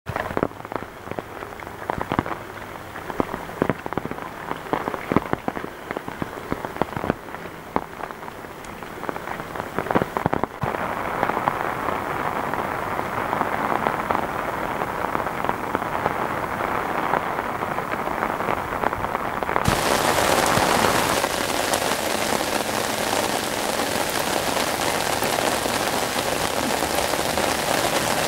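Heavy rain falling. For the first ten seconds or so, many separate drops strike close by as sharp ticks. After that the rain settles into a steady hiss, which grows louder and fuller about twenty seconds in.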